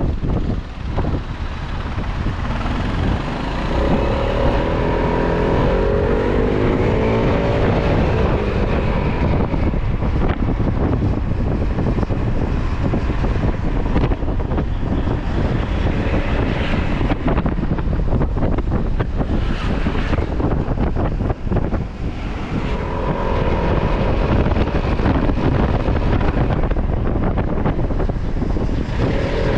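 Wind buffeting the microphone on a moving scooter, with the scooter's engine running under it. The engine note rises twice as the scooter accelerates, a few seconds in and again near the end.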